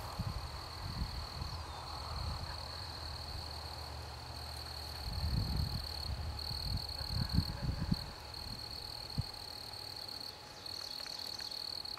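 Insects trilling in the grass: a steady high-pitched buzz that breaks off briefly now and then, over low rumbles and a few soft knocks on the microphone.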